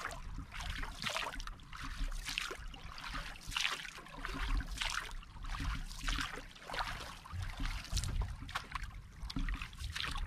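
Wooden paddle stroking through calm sea water beside a small outrigger canoe: a swish and splash that comes again every second or so.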